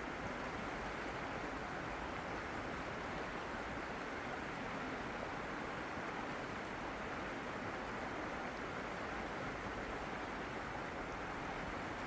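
Steady rush of flowing water, an even hiss with no surges or breaks.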